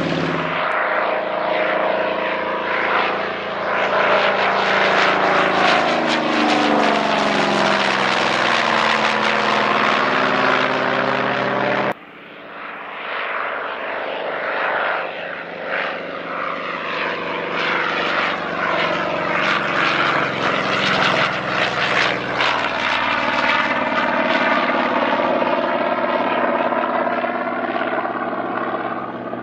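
Piston-engined propeller aircraft flying past, the engine drone swelling and the pitch shifting as each one passes. It breaks off abruptly about twelve seconds in, then a second pass builds up and fades near the end.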